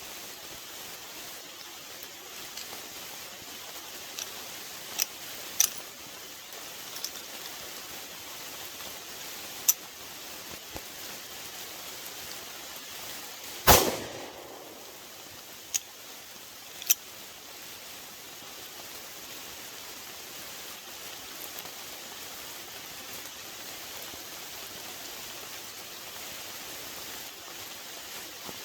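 A single loud gunshot from a home-built prototype pistol about halfway through, with a short echo after it. A few light clicks come before and after, over a steady hiss.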